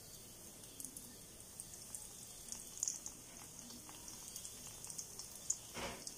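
Breadcrumb-coated stuffed pasta deep-frying in oil in an iron kadai on a low flame: faint, gentle sizzling with scattered small crackles and pops, and one brief louder rush of noise just before the end.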